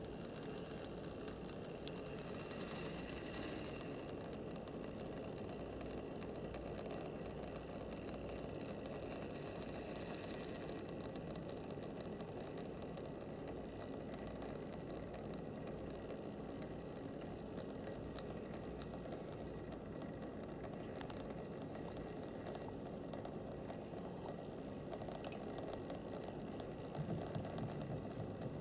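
HO-scale model steam locomotive running on its track, a steady low whirring rattle from its small electric motor, gears and wheels.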